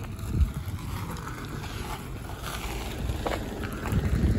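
Low rumble of a route bus heard from inside the cabin, with a dull thump about half a second in and a few softer knocks near the end.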